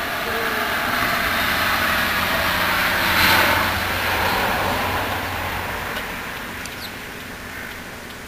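A distant aircraft passing over, its rushing engine noise swelling to a peak about three seconds in, then slowly fading away.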